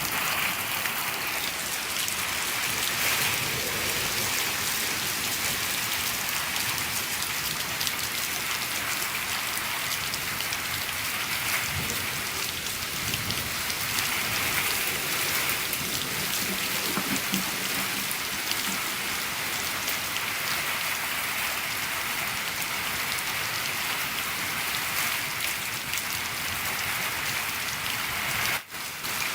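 Steady, dense rain falling on a shed roof, heard from inside the shed as a constant patter of many small drops. There is a brief sudden dip in the sound about a second before the end.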